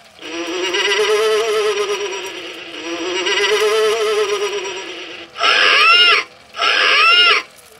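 Halloween Factory animated scarecrow decoration playing its recorded spooky voice through a small, buzzy speaker: a long wavering moan lasting about five seconds, then two short calls that rise and fall in pitch near the end.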